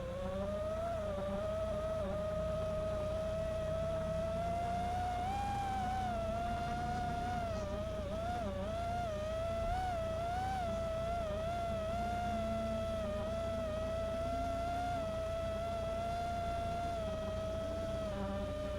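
Brushless motors of a 5-inch FPV quadcopter (T-Motor Velox V2207) whining steadily in flight, the pitch wavering up and down with throttle changes in the middle and dipping briefly near the end.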